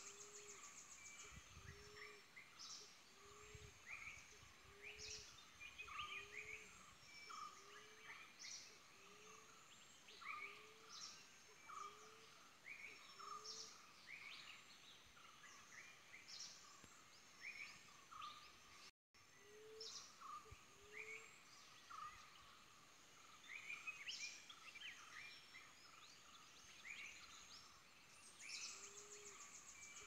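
Faint mixed birdsong, with many short chirps and whistles from several birds over a low note repeated steadily about once a second. The sound cuts out for an instant about two-thirds of the way through.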